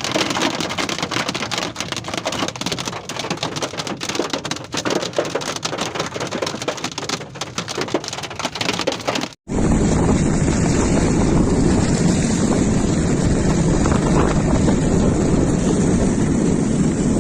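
Hailstorm: a dense, irregular clatter of hailstones striking hard surfaces with rain. About halfway through, the sound cuts to a steadier, heavier rush of downpour.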